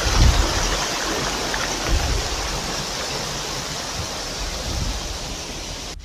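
Mountain stream rushing over rocks in small rapids, a steady hiss of white water, with a couple of low thumps near the start and about two seconds in. It grows a little quieter near the end.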